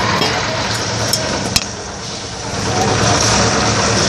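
Concrete mixer's engine running steadily, with one sharp knock about one and a half seconds in.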